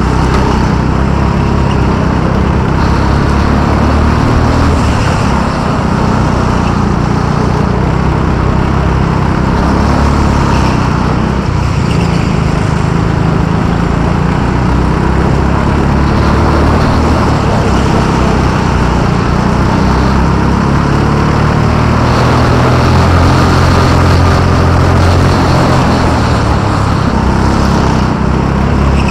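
Go-kart engine running hard through a lap, its note rising and falling with the kart's speed, over steady rushing noise.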